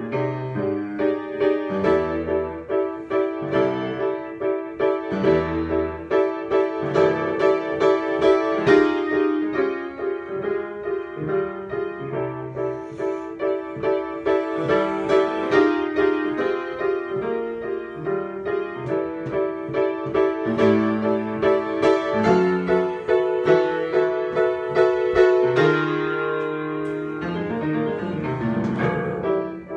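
Solo piano improvisation: quickly repeated notes in the middle register over low bass notes that change every second or two.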